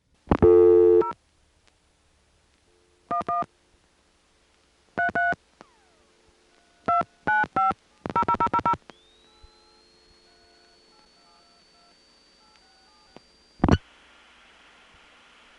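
Crosstalk on a 1970s–80s ESS telephone line during call setup: faint dial tone with other customers' Touch-Tone digits heard as short two-tone beeps, after a loud tone burst near the start. About nine seconds in, a faint high whistle rises and then holds. Near the end a sharp click marks the cut-through to the long-distance network, and the crosstalk gives way to steady carrier hiss.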